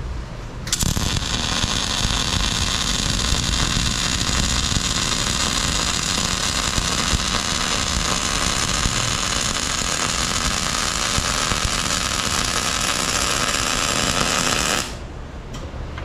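A welding arc burns in one continuous run of about fourteen seconds, starting about a second in and cutting off suddenly near the end, over a low engine rumble.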